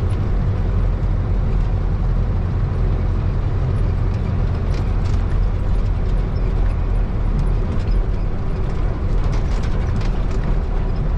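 Heavy truck's diesel engine running with a steady low rumble, heard from inside the cab, with a few faint rattles and clicks.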